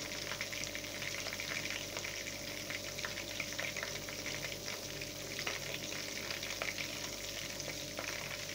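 Seasoned chicken leg and thigh quarters frying in hot oil, a steady sizzle with many small crackles and pops as the pieces brown on their second side.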